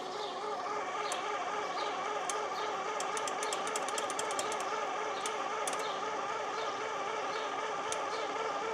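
John Deere 720's pony motor running steadily with a warbling pitch, trying to crank the two-cylinder diesel over. Sharp clicks come about halfway through.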